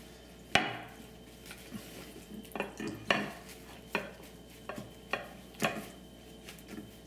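Paper towel patting and rustling on raw chicken on a ceramic plate: a handful of short, separate dabs and light knocks against the plate, the sharpest about half a second in.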